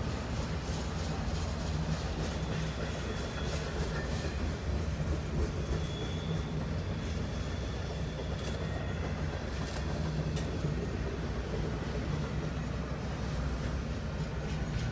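Freight train of intermodal well cars and boxcars rolling past a grade crossing: a steady rumble of steel wheels on rail, heard from inside a car.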